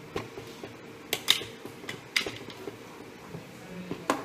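Metal spoon clinking and scraping against an aluminium cooking pot as thick curry is stirred, with a handful of sharp knocks.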